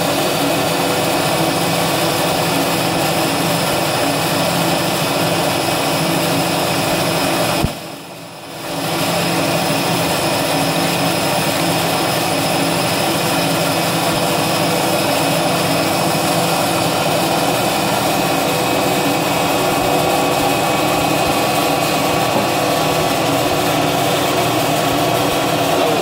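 CNC milling machine's spindle running with a small cutter milling thin aluminium plate: a loud, steady whine with a hiss. It drops away for about a second roughly eight seconds in, then comes back.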